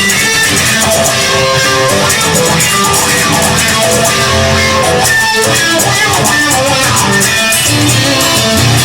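Band music with guitar over bass and drums: an instrumental passage without singing.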